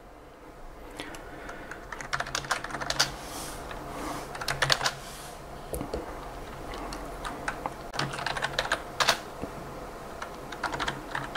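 Computer keyboard keys being typed in several short bursts of rapid clicks with pauses between them.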